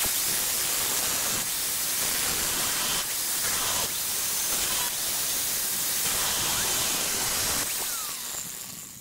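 Angle grinder with an abrasive cut-off wheel cutting through a steel Ford Ranger frame rail: a loud, steady hiss that starts abruptly, then eases off and fades over the last second or so as the wheel comes off the cut.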